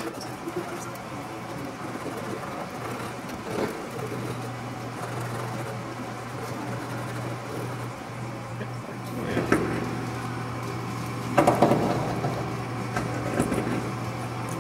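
Metal handling at a workbench: a thin aluminium tab being bent and twisted by hand, with light scrapes and a louder cluster of knocks about nine and a half and again about eleven and a half seconds in, over a steady low hum that comes up about four seconds in.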